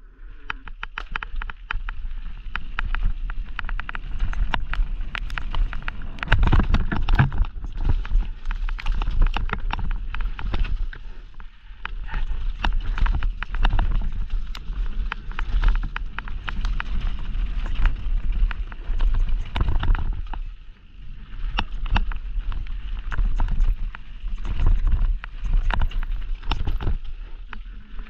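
Mountain bike descending a rough dirt trail: the tyres crunch over dirt and stones while the chain and frame rattle and clatter over bumps, with a low rumble of wind on the microphone. The rattling comes in rough surges, easing off briefly twice.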